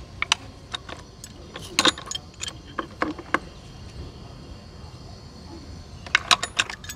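Metal pipe wrenches clinking against a ball valve and each other as they are set and shifted while tightening the valve onto the pipe: scattered sharp clicks, with a quick run of them near the end.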